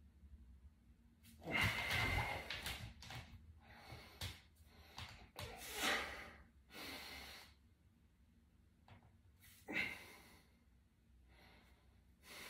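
A man breathing hard in a series of heavy, forceful breaths while holding and changing bodybuilding poses. The longest and loudest comes about two seconds in, with shorter ones following and another sharp one near ten seconds.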